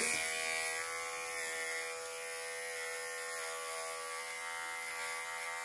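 Electric pet clipper fitted with a #40 blade, running steadily as it shaves the short hair around a dog's ear: an even, continuous buzzing hum of constant pitch.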